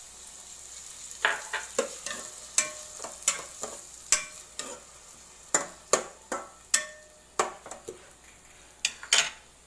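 A spatula stirring and knocking against the sides of a white enamel pot, sharp irregular clacks about twice a second starting about a second in. Under it runs a faint steady sizzle of onions, tomato and ginger-garlic paste frying in butter.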